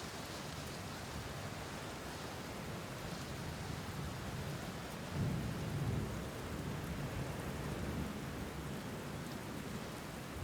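Steady rain falling, with a low rumble swelling about five seconds in.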